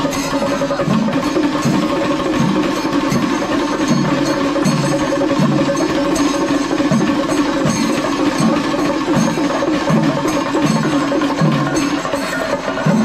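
Traditional Kerala temple percussion ensemble playing loudly and without a break: a dense, steady rhythm of stick-beaten drums with metal cymbals clashing over it.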